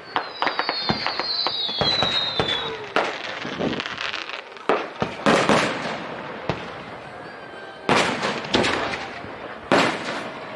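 Aerial fireworks shells bursting in a string of loud bangs, with crackling between them. A high whistle glides slightly downward over the first two seconds or so.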